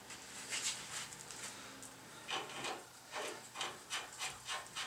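Ratchet wrench worked back and forth on a bolt of the front brake and spindle assembly, a quick rhythmic rasping of about four to five strokes a second from a little past halfway, with a few scattered strokes before it.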